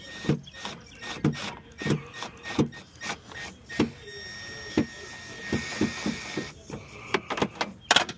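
Hand tool backing a screw out of a door-handle mount, giving a string of sharp ratcheting clicks about one every half second to second, with a quicker cluster of clicks and a brief clatter near the end.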